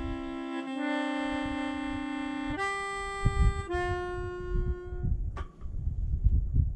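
Music: a run of long held chords, changing three times and stopping about five seconds in, over a low rumble of wind on the microphone.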